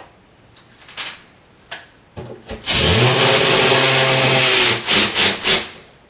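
DeWalt drill driving a Tapcon concrete screw with a washer. After a few light clicks, the motor starts nearly three seconds in, rising in pitch as it spins up and running steadily for about two seconds, then three short bursts on the trigger before it stops.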